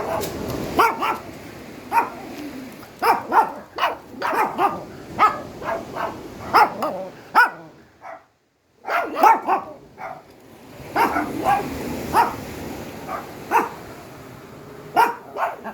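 A dog barking over and over in short, sharp barks, without a real pause except for a brief silence about halfway.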